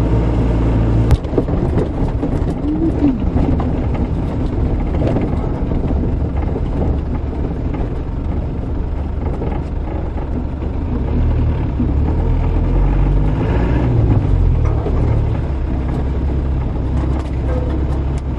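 Land Rover engine running while driving, heard from inside the cab, with steady low drone and rumble. A sharp knock comes about a second in, and the engine note rises and falls about two-thirds of the way through.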